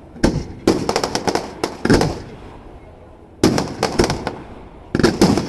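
Fireworks going off in rapid volleys of sharp bangs and crackles: one volley starts just after the beginning and lasts about two seconds, and after a pause of about a second a second volley follows, then a third near the end.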